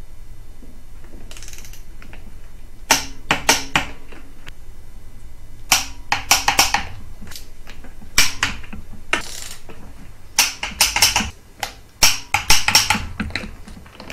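Torque wrench ratchet clicking in several short bursts, a second or two apart, as the exhaust header nuts are run down and tightened, over a steady low hum.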